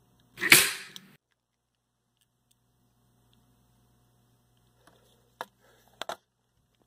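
Roll cap gun firing a paper cap: one sharp bang about half a second in that dies away quickly. A few sharp clicks follow near the end.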